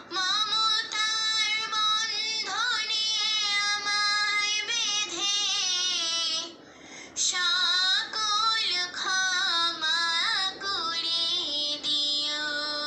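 A young girl singing a Bangla gojol solo, in long held notes that waver in pitch. There is a short break for breath a little past the middle.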